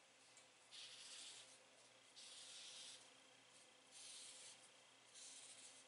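Faint scratching of a black marker drawing lines on paper, in several short strokes of about half a second each.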